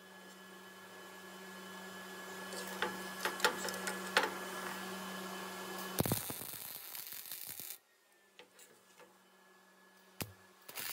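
MIG welder tacking a cracked steel lawn-edger weldment: the arc crackles for about a second and a half starting around six seconds in, then cuts off sharply. Before it come a few sharp metallic clicks as the part and gun are repositioned over a steady hum.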